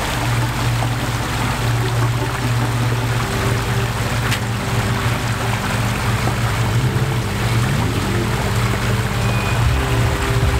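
Ford Bronco's engine running at low revs as it crawls over rocks through a creek, with a brief rise in revs near the end, over the rush of flowing water.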